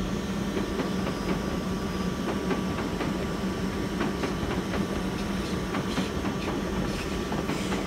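Train running at a station platform: a steady rumble with a low hum and a few faint clicks.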